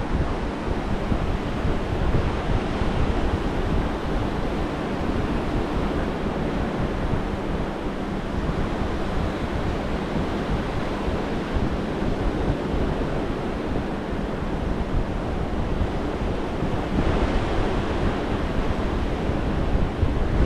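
Gulf of Mexico surf breaking and washing up a sand beach, a steady rush of waves, with wind rumbling on the microphone.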